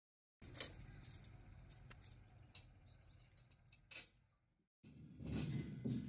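Plastic Rummikub tiles clicking and clinking, a handful of sharp clicks over a faint low hum. Near the end it cuts to a louder, steadier background noise.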